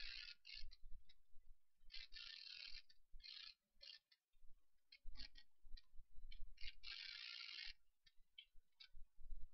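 Computer mouse and keyboard in use: scattered sharp clicks and several short rasping, ratchet-like bursts of about half a second to a second, over a faint low rumble.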